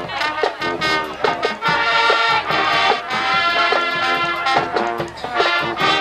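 High school marching band playing: brass over a steady drum beat, holding long chords through the middle.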